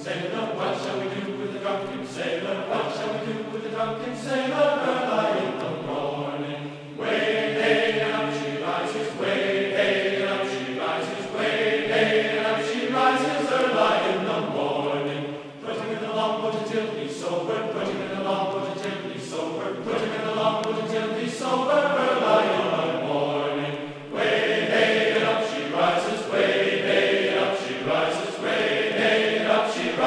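Choral music: a group of voices singing a chant-like tune in long held phrases.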